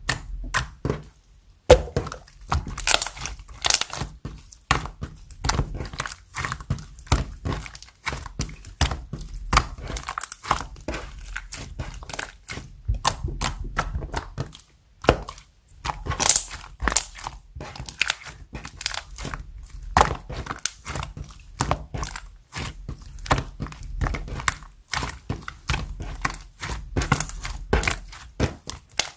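Clear pearl slime being squished, poked and folded by hand, giving dense, irregular clicking and crackling pops of trapped air.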